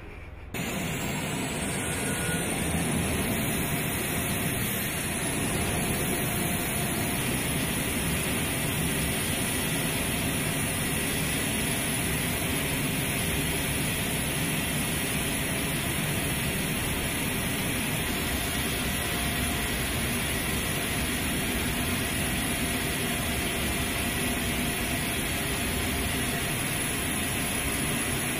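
A/M32A-60 gas turbine ground power cart running. A high turbine whine rises over the first few seconds as it spools up, then holds steady over a loud, even rush.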